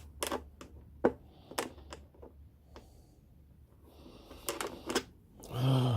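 Irregular sharp clicks and knocks from small parts being handled and fitted onto a diesel heater's fuel tank, the loudest about a second in, with a cluster near the end. A short vocal grunt or hum just before the end.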